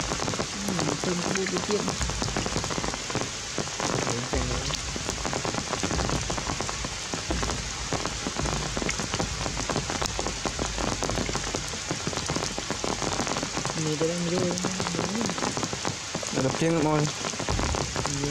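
Steady rain falling on forest leaves, a dense continuous patter of drops.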